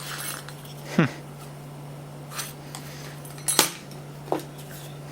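Metal compressor parts and loose steel ball bearings clinking as a Sanden scroll AC compressor is taken apart by hand: about five separate sharp clinks, the loudest about three and a half seconds in, over a steady low hum.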